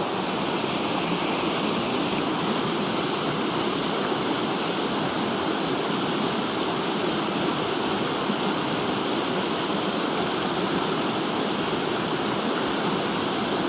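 Steady flowing creek water, an even rush that does not change.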